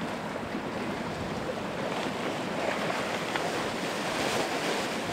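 Water rushing and splashing along a racing sailboat's hull as it drives through choppy waves, with wind buffeting the microphone. The sound swells a little in the middle.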